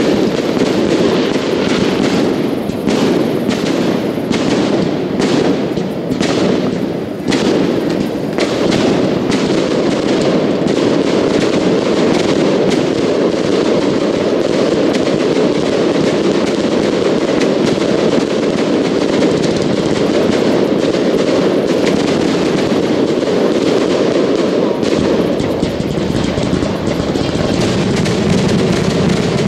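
Fireworks grand-finale barrage: a continuous rumble of many shells bursting at once. Sharp cracks and crackle stand out from about two to eight seconds in.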